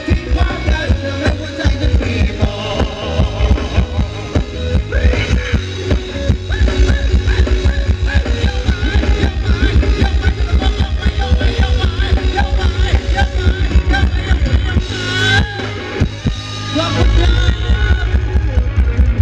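A band playing Thai ramwong dance music with a steady, driving drum beat and a melody line above it. Near the end the drums drop out for a couple of seconds, then the beat comes back in.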